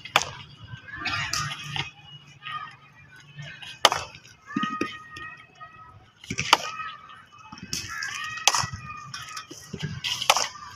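Cricket bat striking a thrown-down cricket ball in batting practice on a concrete net pitch: a few sharp cracks a couple of seconds apart.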